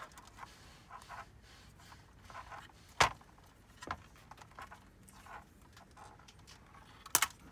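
Faint handling noises of cables and plastic printer parts being worked by hand, with a single sharp knock about three seconds in and a few clicks near the end.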